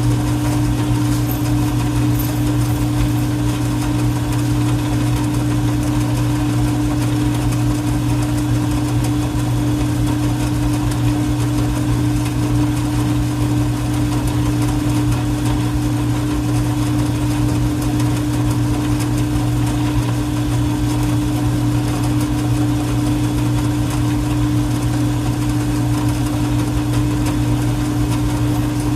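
A metal lathe running steadily, its 1 hp, 110 V electric motor giving a constant, unchanging mechanical hum.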